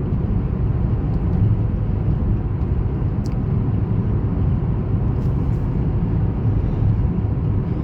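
Steady road and engine noise heard inside the cabin of a moving car, mostly low in pitch and even throughout.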